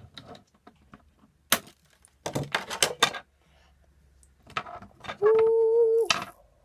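Plastic action figure and its parts being handled and fitted, giving a series of sharp clicks and snaps. About five seconds in, a steady pitched tone is held for just under a second and is the loudest sound.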